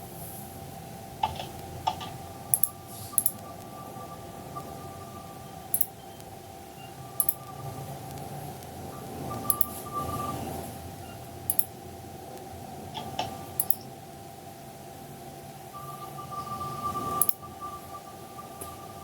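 Scattered sharp clicks from a computer mouse and keyboard, about a dozen, over a steady electrical hum with a thin high whine that comes and goes.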